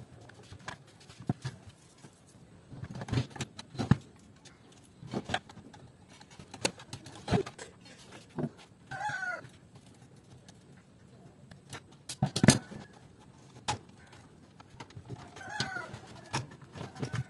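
Clicks, taps and knocks of plastic and metal parts as the opened DVD player's disc loader, wiring and front panel are handled, the loudest knock a little past two-thirds of the way through. Two short pitched calls sound in the background, about halfway through and again near the end.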